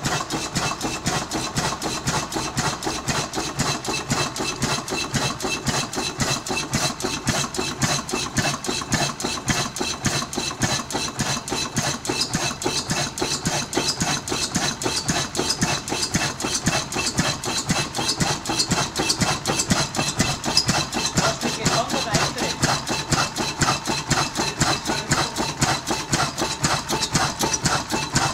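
Historic 1905 MAN DM10 vertical diesel engine running steadily, its valve gear and cylinder giving a fast, even, rhythmic clatter.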